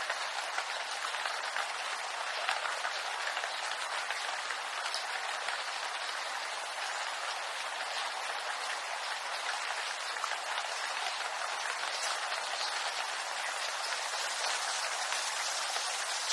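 Steady rain falling on a bamboo grove: a dense, even hiss of countless small drops striking leaves, with no single drop standing out.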